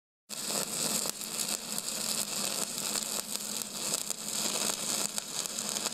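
A steady crackling hiss over a low, even hum. It starts abruptly just after the start and does not change.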